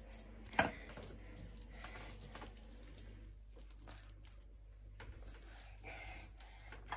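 Wooden spatula scooping sticky apple halwa out of a non-stick frying pan onto a ceramic plate: faint scraping and soft squishing. One sharp knock about half a second in.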